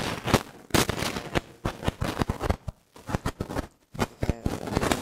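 Handling noise: a rapid, irregular run of sharp clicks and knocks.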